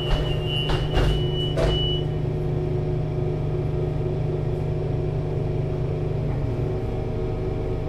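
Solaris Urbino 18 IV articulated bus's DAF diesel engine idling steadily. During the first two seconds a steady high-pitched tone sounds and several short bursts of air hiss come from the bus's pneumatics.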